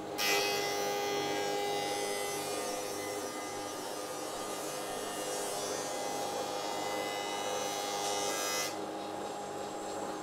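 Rikon 25-010H jointer-planer in thicknesser mode, its cutterhead planing a pine board as the board feeds through. The loud cutting noise sets in just after the start over the machine's steady running hum and stops suddenly near the end as the board clears the knives, leaving the motor running freely.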